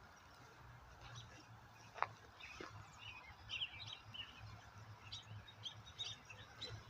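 Faint American robin song: short chirping notes scattered through, over a steady low hum. One short sharp tick about two seconds in is the loudest sound.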